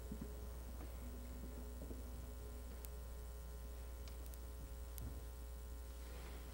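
Steady low electrical mains hum, with a few faint clicks about three to five seconds in.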